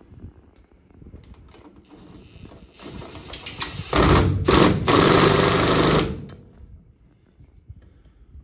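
Cordless impact driver on its lowest setting running a 5 mm hex bit into a caster mounting bolt. A faint whine builds from about a second and a half in, then about two seconds of loud rapid hammering as the bolt tightens down, which cuts off sharply.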